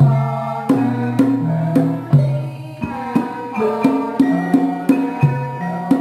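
Javanese gamelan ensemble playing: ringing bronze gong-chime and metallophone notes stepping through a melody over sharp kendang drum strokes, in a steady rhythm.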